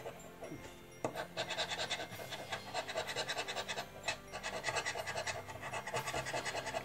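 A scratch-off lottery card being scratched with a round-tipped scratcher on a wooden stick: rapid repeated scraping strokes across the card's coating, starting about a second in.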